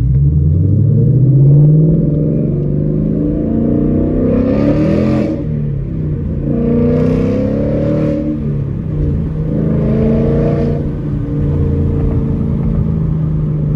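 2019 Ford Mustang GT's 5.0-litre Coyote V8 through a muffler-delete exhaust with an X-pipe, heard from inside the cabin as the car accelerates hard. The engine note climbs steeply at first, then drops back and climbs again several times as the speed builds.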